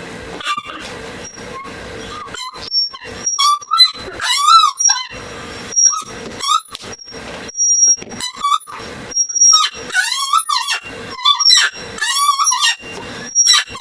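Repeated squeaking: short bursts of high, wavering squeaks that come every second or two.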